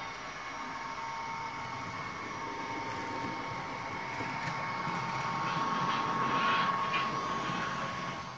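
Model diesel locomotive running on model railway track with its coach: a steady electric motor hum and whine with wheel noise on the rails, growing louder as it passes close by, loudest about six to seven seconds in.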